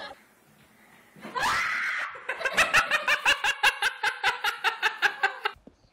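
A person laughing hard in a rapid run of short laughs, about seven a second for some three seconds, after a brief high cry about a second and a half in.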